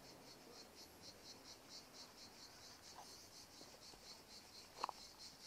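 Faint, steady chirping of insects in the trees, pulsing about four times a second. About five seconds in there is one brief, louder, higher sound.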